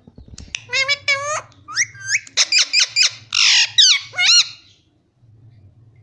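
A parakeet gives a rapid run of loud, short squawking calls that swoop up and down in pitch, with one harsher, longer squawk in the middle. The calls stop about a second before the end, leaving a low steady hum.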